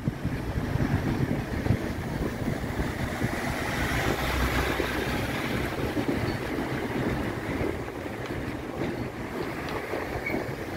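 Road tourist train, a small motor tractor dressed up as a steam locomotive pulling open carriages, driving past on the street: its engine and tyres grow louder toward the middle and fade as it moves away.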